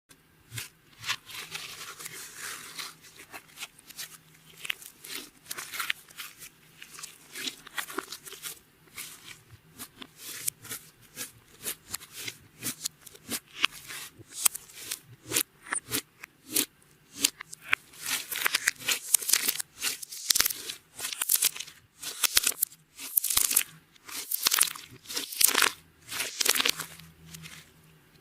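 Clear slime being kneaded and stretched by hand: an irregular run of sticky crackles and pops, louder and denser in the second half.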